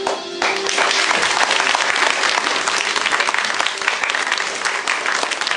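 Audience applause breaking out about half a second in as the show's music stops, then holding dense and steady.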